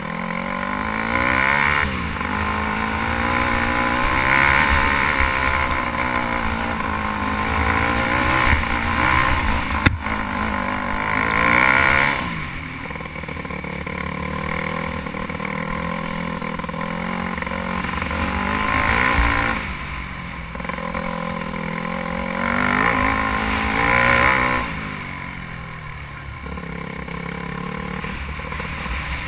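Dirt bike engine revving up and down as the rider works the throttle, with several louder bursts of acceleration, over a low wind rumble on the helmet-mounted microphone.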